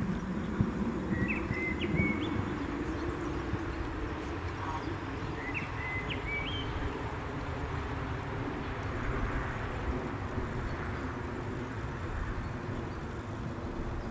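A steady low outdoor rumble, with a bird giving two short bursts of chirps a few seconds apart in the first half.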